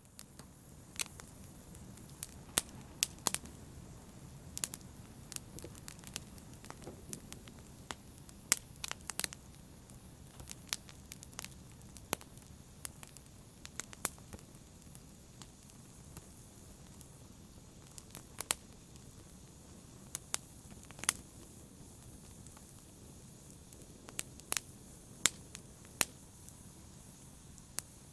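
Wood fire burning in a fireplace: a low, steady rush of flame with frequent sharp, irregular crackles and pops from the burning logs.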